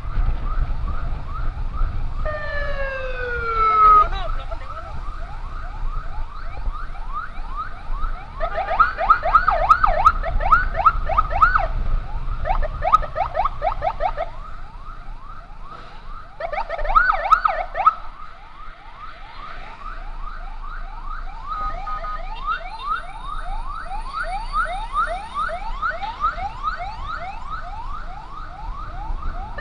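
Emergency sirens of an ambulance escort running in fast yelp mode, about three rising sweeps a second, with a second, louder yelp cutting in and out in bursts. A few seconds in, a siren tone falls in pitch over about two seconds.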